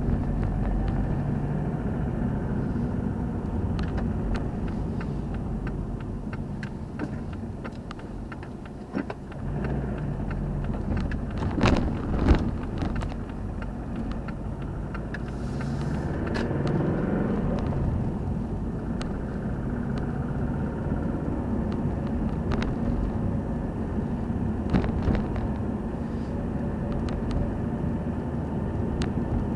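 A car heard from its own dashboard camera while driving slowly: steady engine and tyre rumble, with scattered clicks and knocks from the road and the car body, and a pair of louder knocks about twelve seconds in.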